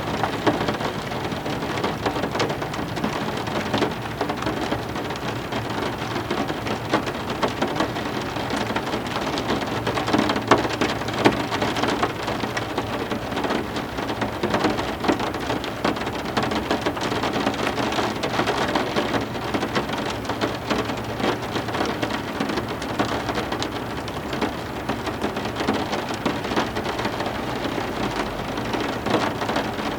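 Steady heavy rain, a dense patter of drops striking a surface, with no break in intensity.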